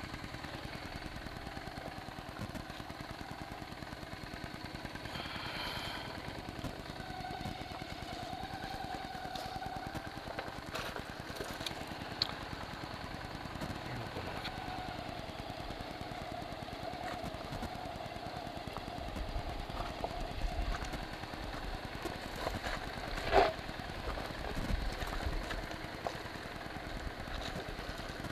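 Honda Shadow 750's V-twin engine running at low revs as the motorcycle rolls slowly over gravel, with one sharp knock late on.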